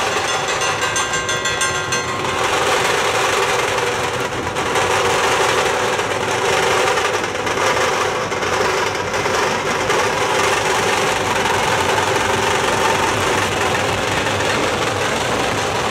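Dhol-tasha ensemble drumming: many large barrel dhols and small tasha drums beaten together with sticks in a loud, dense, continuous rhythm.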